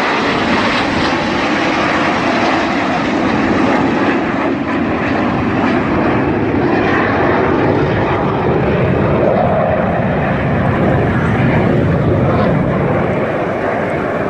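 Fixed-wing aircraft flying over, a loud, steady rush of engine noise.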